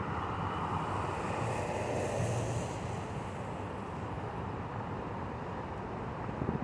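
Steady road traffic noise, an even rushing sound, with a brief higher hiss about two seconds in.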